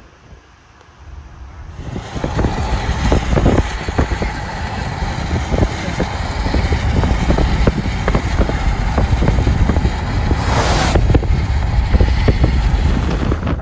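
Strong wind buffeting the microphone: a heavy low rumble full of irregular pops, starting about two seconds in after a quieter moment.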